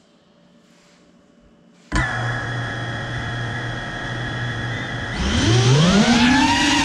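A small drone's electric motors and propellers start abruptly about two seconds in and whir at a steady idle. Near the end they spin up with a rising whine and hold at a higher pitch as the drone lifts off.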